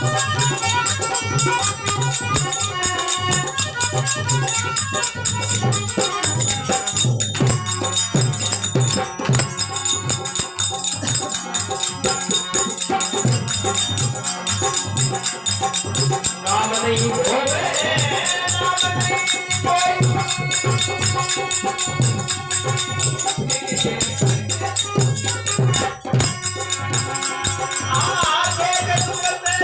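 Instrumental music from a devotional folk song: a steady drum beat under a held melody, with a fast jingling, rattling percussion rhythm throughout.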